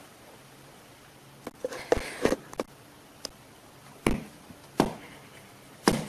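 Cats swatting at each other across a hard ledge, their paws landing as a series of sharp, irregular knocks and taps, about seven in all, most of them after the first second and a half.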